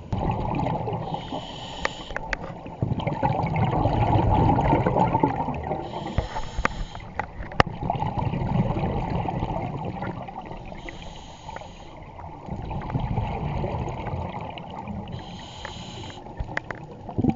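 Scuba diver breathing through a regulator underwater: four short hisses as the demand valve opens on each inhale, about every four to five seconds, each followed by the low bubbling rush of the exhale.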